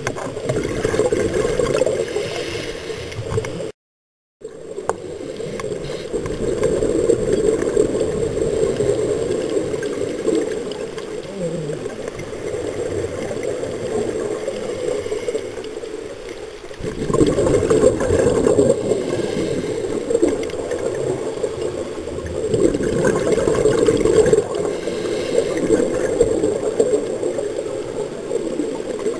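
Underwater gurgling and rushing of scuba exhaust bubbles heard through a camera housing, swelling and easing every few seconds with the divers' breathing. The sound drops out for about half a second around four seconds in.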